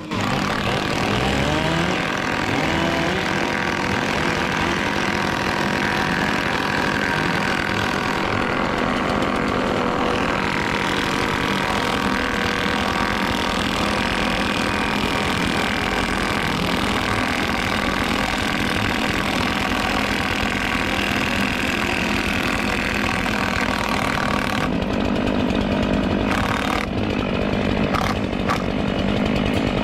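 Stihl MS 500i chainsaw, a 79 cc two-stroke with electronic fuel injection, running steadily at high revs and cutting through wood. The sound thins briefly a few seconds before the end, with a couple of short sharp knocks.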